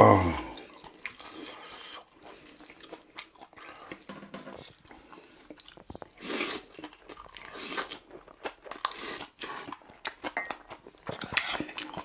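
Close-miked chewing and mouth smacking as a man eats big spoonfuls of bibimbap, with wet clicks between bites and a louder burst of chewing about six seconds in. At the very start comes a short, loud vocal sound that drops in pitch.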